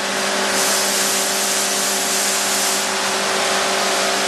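Mattison hydraulic surface grinder running with its grinding wheel spindle turning: a steady, very quiet machine hum with a whirring hiss. A brighter hiss comes in about half a second in and fades out near three seconds.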